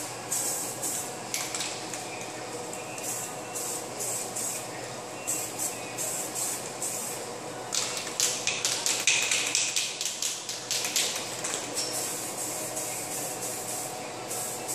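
Aerosol spray-paint can hissing in many short bursts as paint is sprayed on, the bursts coming fastest a little past the middle.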